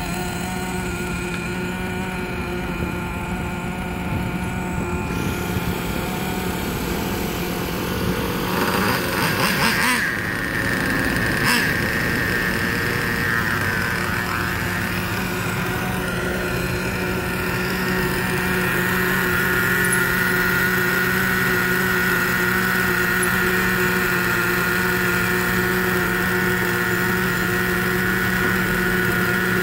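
Small nitro (glow-fuel) RC car engines running steadily at idle during break-in. About ten seconds in the engine note rises briefly, and two sharp knocks come a second or so apart.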